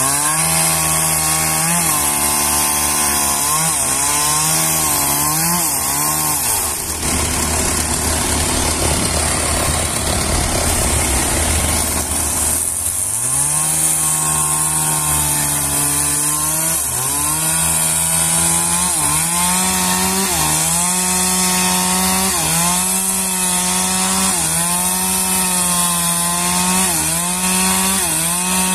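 Chainsaw cutting trembesi wood: the engine revs up about the start, then its pitch dips again and again as the chain bites into the wood under load. In the middle it drops to a lower, rougher running for a few seconds before revving back up into the cut.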